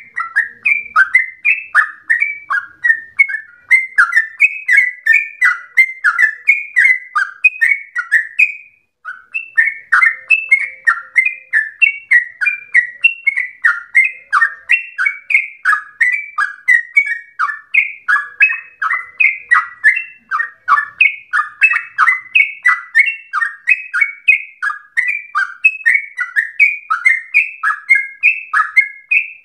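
Yellow-vented bulbul (trucukan) singing a long, unbroken run of loud, bubbly notes, two to three a second, with one short break about nine seconds in. This is the rapid long phrasing that keepers call 'ropel panjang'.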